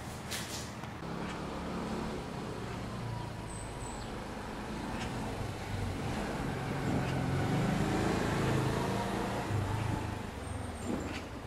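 Street traffic: a motor vehicle's engine running close by, a low rumble that grows louder to a peak about two-thirds of the way through and then eases off.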